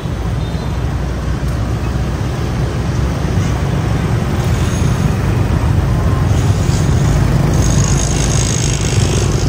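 Steady road noise from riding in city scooter traffic: a low rumble of wind and motorbike engines that grows a little louder a few seconds in, with a faint extra hiss near the end.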